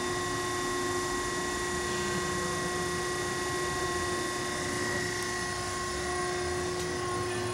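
Strippit Super 750 SG hydraulic fabricator idling: its hydraulic pump and motor hum steadily, with a few steady whining tones and no punching strokes.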